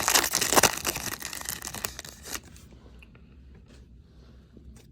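Foil wrapper of a trading-card pack crinkling and tearing as it is opened, dense and crackly, stopping about two and a half seconds in; after that only a few faint ticks of handling.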